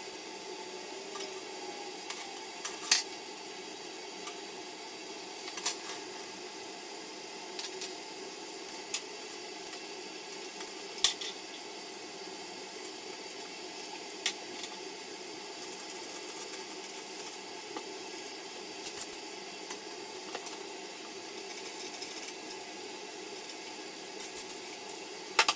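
Scattered light metallic clicks and clinks, about ten spread over the stretch, from hands working the toilet tank's bolts, washers and nuts, over a steady faint hiss.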